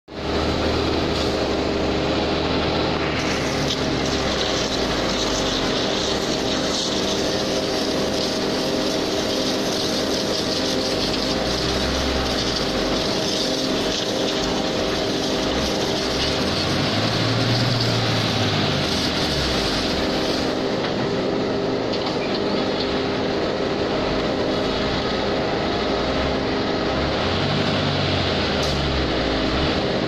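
Concrete mixer truck running steadily as it backs up slowly, a constant mechanical drone with a hiss over it. Its deep engine note swells and falls back a few times, near the middle and again near the end.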